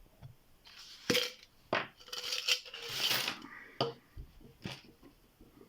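Small metal clicks and scraping as lock picks and a tension wrench are worked into a small 20 mm Wolfhead padlock.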